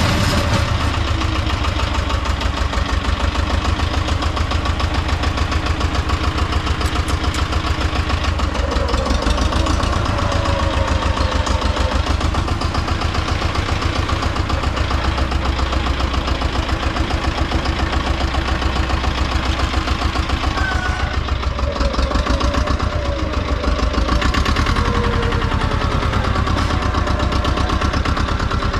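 Tomo Vinković TV-731 tractor engine running steadily with a fast, even pulsing, its note wavering a little in the second half.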